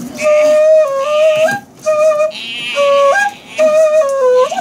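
A simple tune of short stepped notes with a flute-like tone, played in short phrases with brief breaks and small upward slides between some notes.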